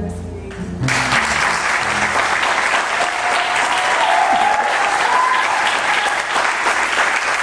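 An upright double bass plays its last plucked notes, then audience applause breaks out suddenly about a second in and keeps going, with a drawn-out cheer rising over the clapping midway.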